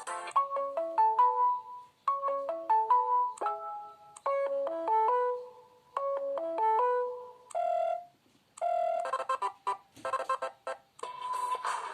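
KAZAM Trooper2 mobile phone's built-in ring tone: a short electronic melody of quickly rising notes ending on a held note, played four times about every two seconds. After two short tones, a different, busier tone starts about nine seconds in.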